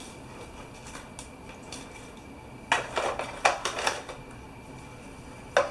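Small parts and packaging being handled and put back into their box: a quick cluster of clicks, knocks and rattles about three seconds in, and one more knock near the end.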